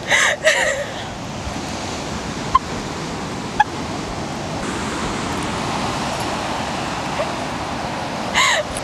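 A woman crying, with short wailing sobs that waver in pitch just after the start and again near the end, over a steady background rush.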